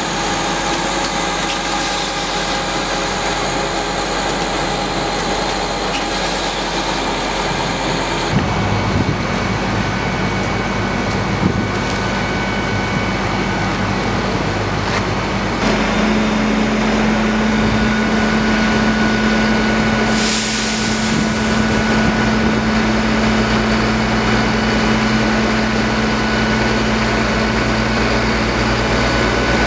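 Truck engine running steadily with a constant hum. The sound changes abruptly about eight seconds in and again about halfway through.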